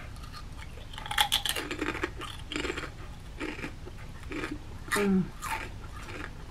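A person biting into and chewing a kettle-cooked potato chip: a quick run of crisp crunches about a second in, then slower, spaced chewing crunches. A brief hum about five seconds in.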